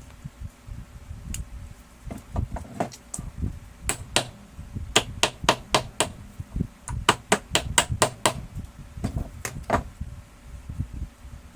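Sharp, irregular taps and clicks of hard parts being knocked and handled during a printer gear repair, some in quick clusters of about three or four a second, over a low rumble of handling.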